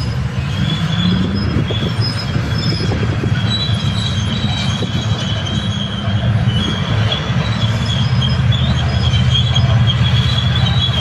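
Heavy mining machinery at work: the deep, steady rumble of large diesel engines under a continuous high-pitched metallic squeal of the kind steel crawler tracks make.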